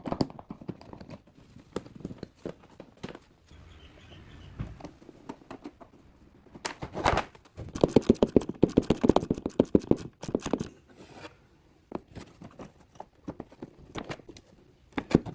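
Light metallic clicks, taps and rattles of a throttle cable and its fittings being worked free of a scooter carburetor by hand. The clicking comes in a quick, dense run through the middle, after a sharper knock.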